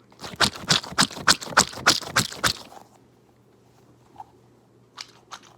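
Orbeez-filled squishy stress ball squeezed by hand over and over: a quick run of squeezing noises, about five or six a second for some two and a half seconds, then a pause and lighter, quicker clicking near the end.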